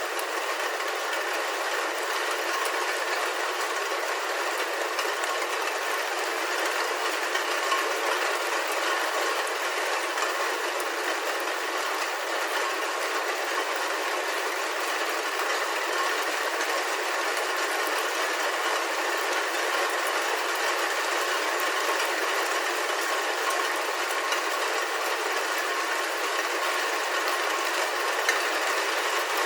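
Steady rain falling on a roof, heard from inside the building: a dense, even patter of many small drop ticks.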